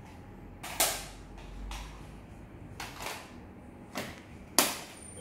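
Plastic cassette tape cases clacking as they are handled, taken from a plastic storage box and set down: four sharp clacks spread out, the loudest near the end.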